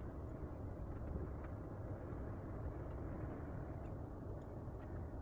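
Steady engine and road noise of a car driving, heard from inside the cabin.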